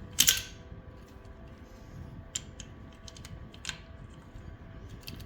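Metal tools clinking against a bare engine short block as a socket wrench is worked onto a hard-to-reach bolt: one sharp clank just after the start, then a few lighter clicks.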